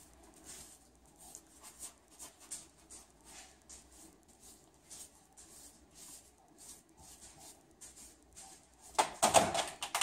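Paintbrush strokes on a wall: a soft, repeated swishing about twice a second as paint is brushed along the bottom corner. About nine seconds in comes a louder burst of knocking and clatter.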